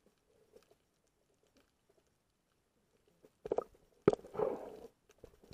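Muffled underwater sound through a camera's waterproof housing: faint crackling, then a few knocks about three and a half seconds in, and a sharp knock followed by a short gurgling rush just after four seconds.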